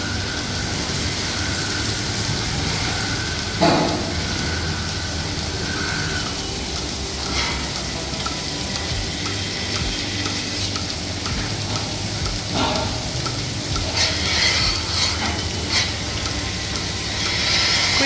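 Milking parlour machinery running: a steady hiss and hum, with light regular clicking for a few seconds in the middle and a few short clanks.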